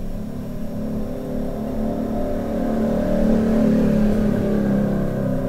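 A motor-like hum of several held tones that waver slightly in pitch, growing louder a little past halfway and then easing off.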